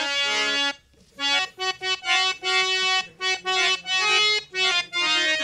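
Harmonium playing a melodic phrase of held, reedy notes, with a short break about a second in.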